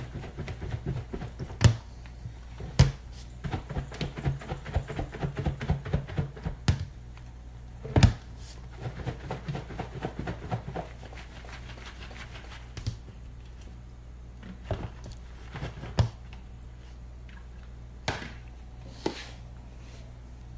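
Oysters being shaken in fish-fry breading inside a lidded plastic breading container with a strainer insert: a run of dense rattling and thumping for about ten seconds with several louder knocks, then a few separate knocks.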